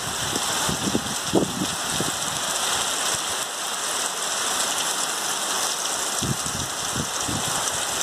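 Heavy rain falling steadily, a dense even hiss, with a few brief low thumps near the start and near the end.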